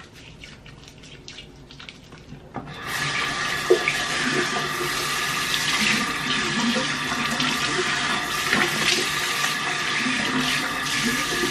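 Soft rubbing of soapy hands, then a bathroom sink tap is turned on about three seconds in and runs steadily into the basin, with splashing as the hands are rinsed under it.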